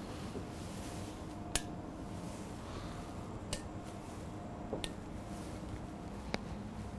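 Kitchen room tone: a steady low hum with four short, sharp clicks or clinks, a second or two apart.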